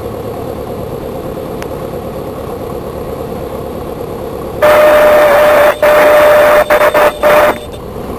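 Cockpit noise of a Beechcraft Sundowner's engine throttled back at idle. About four and a half seconds in, the stall warning horn comes on loud and steady for about three seconds, breaking off briefly a few times: the wing is near the stall as the plane is held off in the landing flare.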